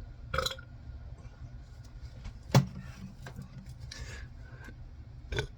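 Scattered rustles and clicks, with one sharp knock about two and a half seconds in and a smaller one near the end.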